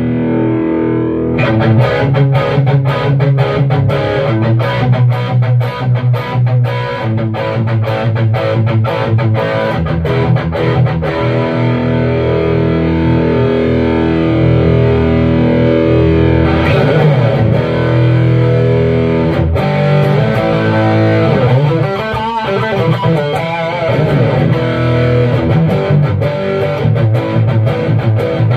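Distorted electric guitar played through an Alien Monster 15-watt tube amplifier. A chord rings for the first second and a half, then fast picked notes and chords follow, with a wavering, warbling passage a little over twenty seconds in.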